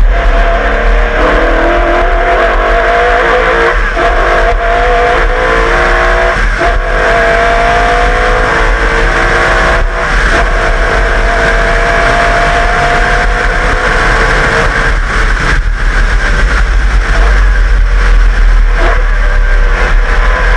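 Holden V8 of a Group A Walkinshaw VL Commodore race car at speed on track. It accelerates hard, its pitch climbing and dropping back at each gear change, then runs on at high revs.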